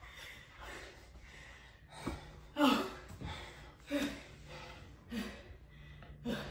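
A woman's breathless laughter and gasps, in about six short bursts spaced roughly half a second to a second apart.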